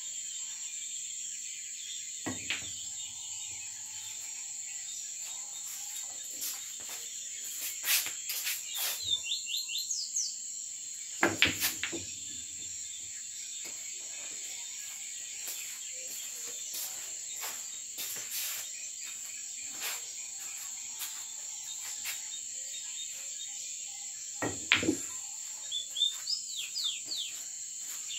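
Pool balls clacking on a sinuca table as shots are played: sharp cue strikes and ball-on-ball knocks in a few clusters, the loudest around 11 and 25 seconds in. Under them runs a steady, high-pitched chirring of crickets, with a few short chirps.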